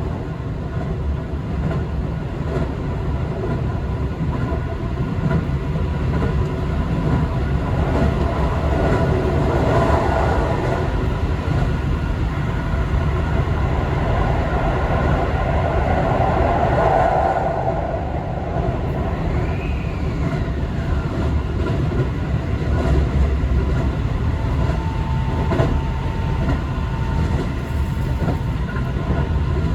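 Keio 5000 series commuter train running at speed, heard from inside the passenger car: a steady low rumble of wheels on the rails. A brief whine falls in pitch about twenty seconds in, and a faint steady tone comes in near the end.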